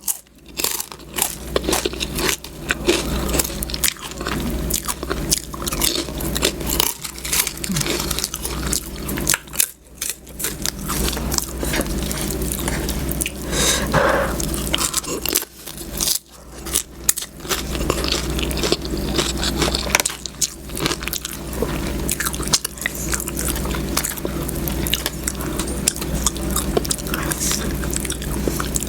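A person chewing and biting food close to the microphone, with many small irregular clicks and mouth sounds, over a steady low hum.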